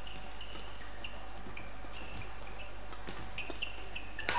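Badminton rally: rackets strike the shuttlecock in sharp cracks while players' shoes squeak on the court mat. There are many short squeaks and a louder hit near the end with a brief ringing tail.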